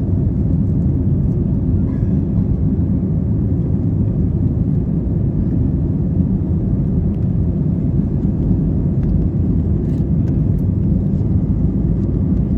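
Steady low rumble of an Airbus A320 during takeoff, its jet engines running at takeoff power, heard from inside the cabin.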